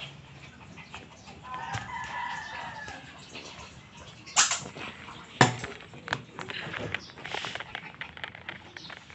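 A rooster crowing once, starting about a second and a half in and lasting over a second. Two sharp knocks follow about a second apart, louder than the crow.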